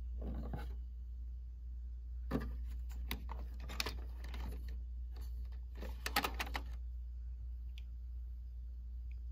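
Plastic clicks and clacks of a large-format printer's ink tank lock lever being lifted and the matte black ink tank pulled from its slot, in several short clusters with the loudest a little after six seconds in. A steady low hum runs underneath.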